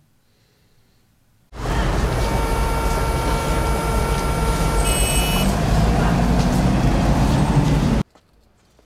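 City street traffic: cars and a bus running along a busy roadway. It starts abruptly about a second and a half in and cuts off just as suddenly near the end. A brief high-pitched squeal comes near the middle, and an engine rises in pitch toward the end.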